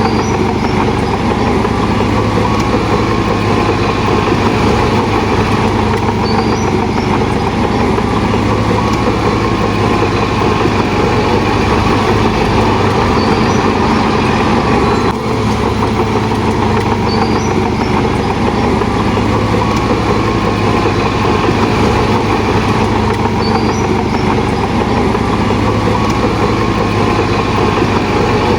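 Heavy diesel earthmoving machinery running steadily, with a brief dip in level about fifteen seconds in.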